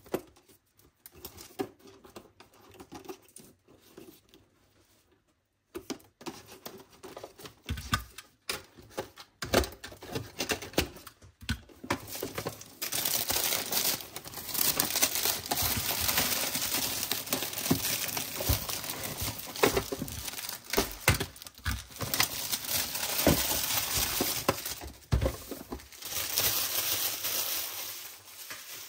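Advent calendar packaging being unwrapped by hand: a few light taps and rustles at first, then steady crinkling of plastic film and cardboard for most of the second half.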